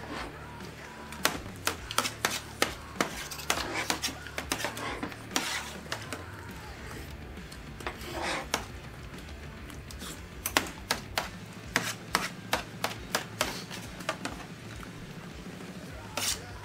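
Forks and knives clicking, tapping and scraping against metal sheet pans and plates as people eat, in quick irregular strikes with a few short scrapes, over a low steady hum.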